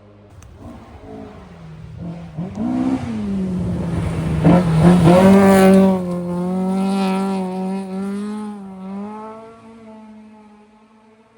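Historic rally car approaching at speed, passing close and driving away, its engine under hard load. The revs climb and drop once as it changes gear about two and a half seconds in, then hold steady through the loudest pass, with a hiss of tyres and a few sharp clicks near the middle, before the engine fades into the distance.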